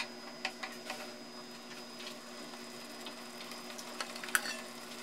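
Tomato sauce simmering in a frying pan, a faint steady hiss with scattered small pops and clicks, a few more of them near the end.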